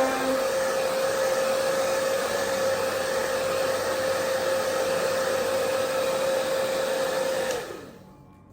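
Hand-held hair dryer blowing steadily with a motor hum, drying a layer of Got2b freeze spray on the wig's lace. It is switched off near the end, its hum dropping as it winds down.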